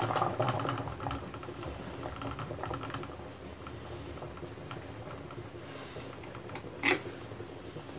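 Water simmering in a covered kadai under a tiffin box of egg set to steam: a faint, steady patter of small bubbling ticks. One brief louder noise about seven seconds in.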